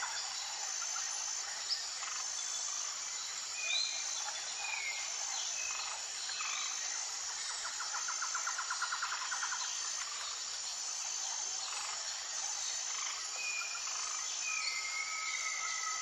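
Natural outdoor ambience of insects and birds. A high insect chirp repeats at an even pace throughout, with scattered short bird chirps. A fast rattling trill sounds near the middle, and a thin held whistle comes near the end.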